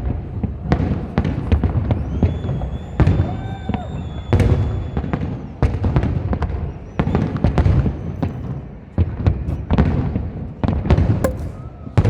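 Large fireworks display: a dense, continuous run of shell bursts, bangs and crackles over a low rumble, with a few high whistling tones a couple of seconds in and again past the middle.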